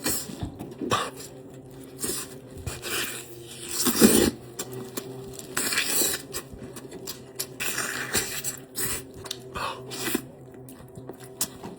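Close-up eating sounds of chicken drumsticks: irregular bites, chewing and handling of the food, the loudest about four seconds in, over a faint steady hum.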